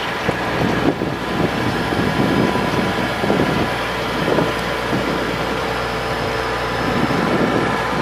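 Engine of a 2001 Ford F750 digger derrick truck running steadily, driving the hydraulics as the operator extends the telescoping boom, with a constant whine over the engine.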